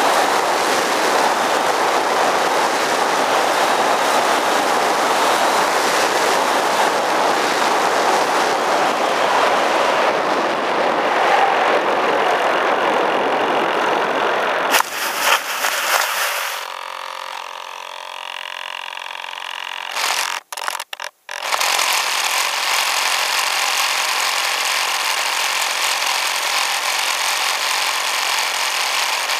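Rushing wind and RC-plane motor and propeller noise picked up by a camera riding on the plane in flight. About halfway through the noise changes abruptly and drops as the plane comes down, with a few brief cut-outs, then a steady noise returns.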